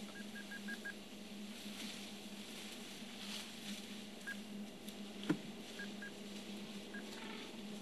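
Short high electronic pips over a steady low hum: a quick run of five at the start, then single pips scattered later, with one sharp click about five seconds in.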